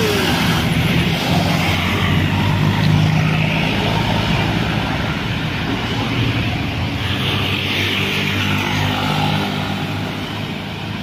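Heavy road traffic: the engines of large vehicles such as buses and trucks drone steadily under load on an uphill road, with tyre and wind noise swelling and fading as they pass.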